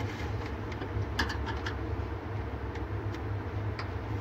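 A few light clicks and scrapes of a small metal clip being worked onto the defrost heater under a refrigerator's evaporator coils, over a steady low hum.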